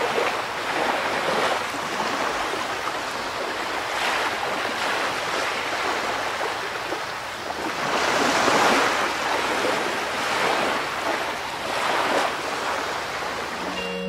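Ocean surf: waves washing in and drawing back in several slow swells, the loudest a little past the middle.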